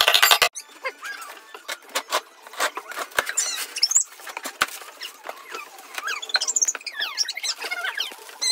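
Cardboard cartons and styrofoam packing being handled: flaps scraped and pulled open, with many short knocks, rustles and high squeaks. A stretch of music cuts off about half a second in.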